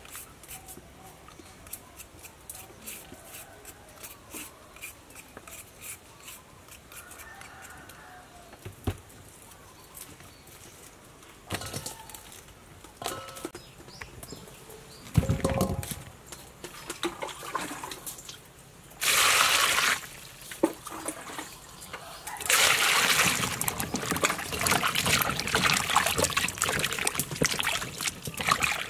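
Faint, rapid scraping of a carrot being peeled with a hand peeler. Later comes a brief burst of water, then hands splash and rub vegetables in water in a steel bowl, loudest through the last several seconds.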